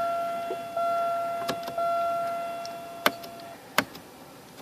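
Electronic warning chime sounding as a steady tone that restarts about once a second and stops about three and a half seconds in, with a few sharp clicks over it and after it.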